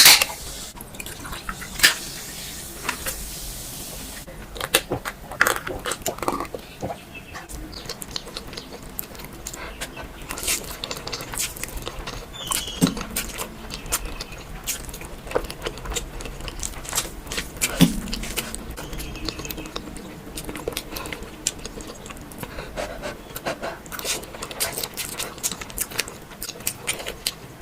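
Close-miked eating: wet chewing and mouth sounds, with many short sharp clicks and taps scattered throughout.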